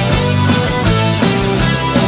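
Rock band playing an instrumental passage with no vocals: guitar chords over bass and drums, with drum hits landing at a steady beat of about three a second.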